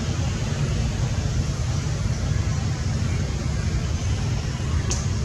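Steady low rumble and hiss of outdoor background noise, with one brief click near the end.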